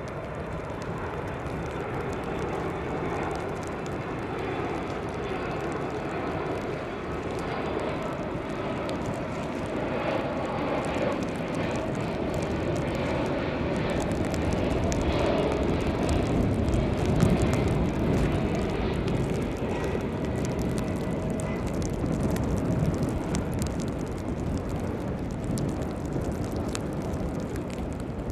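Jet engines of a Boeing 767-300 airliner on final approach passing by, a steady rushing noise that swells to its loudest a little past halfway and then eases off.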